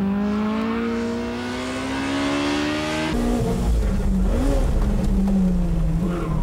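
Honda Civic Type R EK9's four-cylinder VTEC engine at high revs, accelerating with its note rising steadily for about three seconds. Then it is heard from inside the cabin: the engine note wavers over a low rumble, with a brief rise and fall in pitch partway through.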